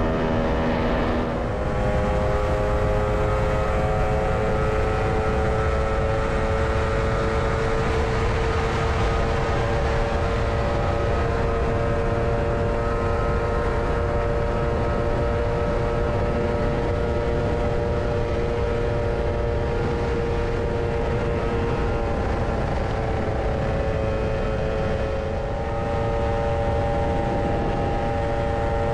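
Lambretta scooter engine running at a steady cruise, a held droning note over heavy wind rush on the microphone. About a second and a half in the note drops and settles, and a few seconds before the end it dips briefly, then comes back slightly higher.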